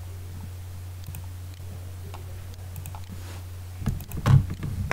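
Computer mouse clicks, faint and scattered at first, then a cluster of louder clicks and knocks about four seconds in. A steady low electrical hum runs under them on the microphone.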